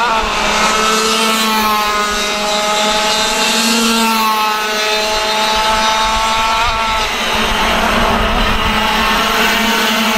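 Racing kart engines running hard, several at once, their pitches rising and falling as they accelerate and lift off.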